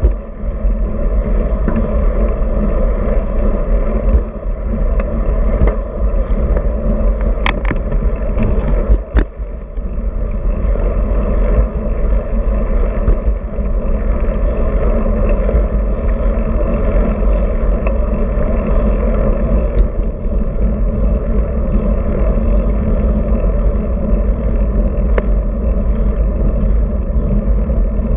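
Steady wind rush and tyre rumble on a road bike's handlebar-mounted action camera as the bike rolls along pavement. There are a couple of sharp clicks, about seven and nine seconds in.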